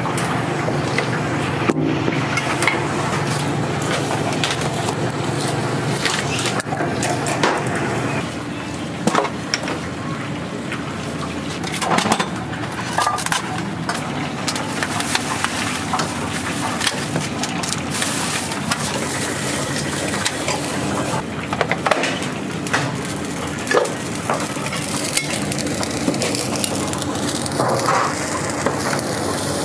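Busy noodle-shop kitchen at work: a steady rushing noise with frequent clatter and knocks of pots, utensils and dishes.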